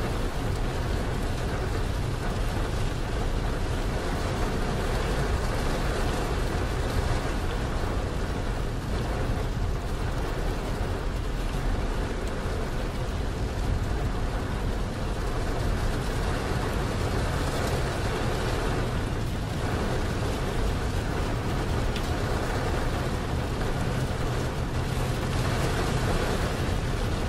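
Heavy rain on a semi truck's windshield and cab, heard from inside the cab, over steady engine and tyre noise on the wet highway.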